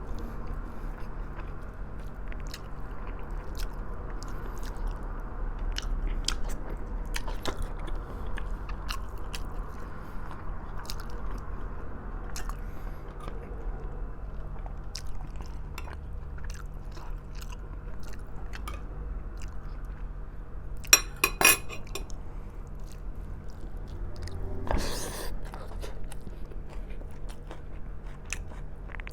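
Chewing and biting of braised pork trotters, with many small wet mouth clicks throughout. A louder, crunchier burst of sharp clicks comes about two-thirds of the way through.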